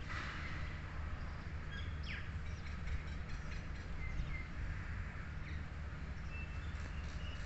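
Birds chirping now and then over a steady low rumble of background noise; the notes are short and high, some falling quickly in pitch.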